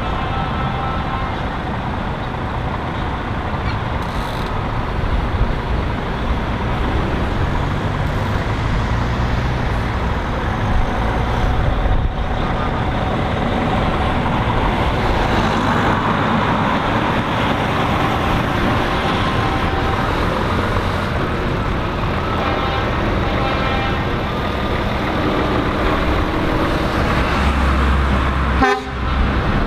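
A line of heavy diesel lorry tractor units driving slowly past one after another, their engines rumbling steadily, with horns sounding now and then.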